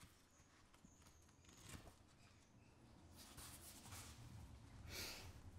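Near silence with the faint rustle of a small paperback's pages being leafed through, and a brief louder rustle about five seconds in.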